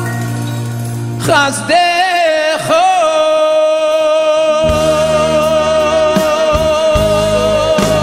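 Male lead singer with a live band: a short bending vocal run about a second in, then one long held note over the accompaniment, with the bass coming back in about halfway through.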